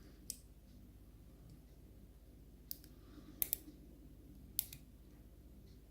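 Small, sharp metal clicks of lock pins, springs and tools being handled as a pin-tumbler lock is dismantled: about five scattered clicks, two of them close together in the middle.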